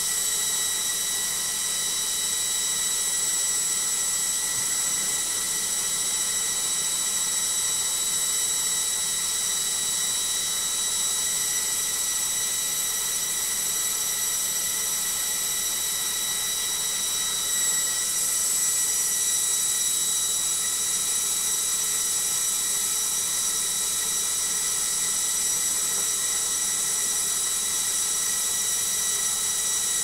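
Logik front-loading washing machine on its final high-speed spin: a steady, noisy high-pitched whine over a rushing hum from the spinning drum and motor. The whine steps slightly higher and louder a little past halfway.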